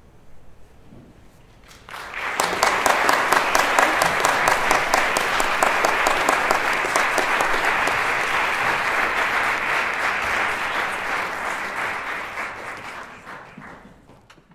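Audience applauding: the clapping breaks out suddenly about two seconds in after a quiet moment, holds steady, then fades away near the end.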